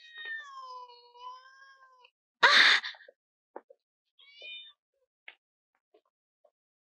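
Kittens mewing: thin, high-pitched mews, one drawn out over the first two seconds and another brief one about four seconds in. A short, loud, harsh burst about two and a half seconds in, with a few light knocks scattered through.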